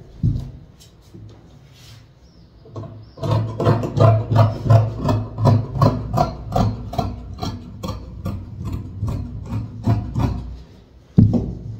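Large tailor's shears cutting through folded woven cloth: a steady run of snips, about three a second, each with a dull knock, starting a few seconds in and stopping shortly before the end.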